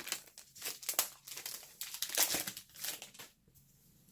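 Baseball card pack wrapper crinkling and tearing as it is opened by hand, a run of irregular rustles that die down after about three seconds.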